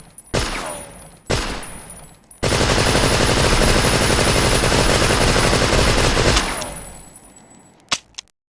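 Tommy gun (Thompson submachine gun) firing: two single shots about a second apart, each with a long echoing tail, then a sustained burst of rapid automatic fire lasting about four seconds that dies away in a long echo. A short sharp click comes near the end.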